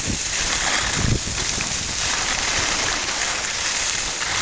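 Steady rushing hiss of skiing downhill: skis sliding over packed snow, with wind buffeting the microphone in a couple of low thumps near the start.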